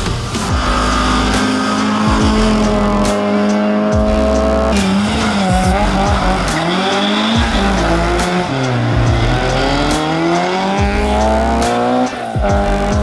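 Race car engines revving hard, the pitch climbing and dropping again and again as the cars accelerate, shift and brake, over background music with a steady beat.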